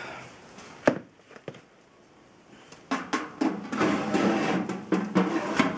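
A sharp knock about a second in, then from about three seconds a dense clatter and scraping: wood chips and the metal fire tray being handled at the bottom of a fish-smoking cabinet as the oak and beech chips are set for smoking.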